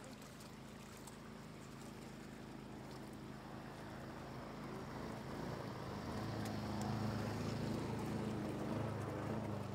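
Shallow floodwater running over the ground, with a low steady hum that grows louder about halfway through.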